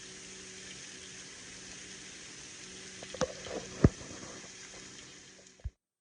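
Bacon and a burger patty sizzling on a Lodge cast iron griddle: a steady hiss over a low hum, with two sharp knocks a little past the middle, the second the louder. The sound cuts off abruptly just before the end.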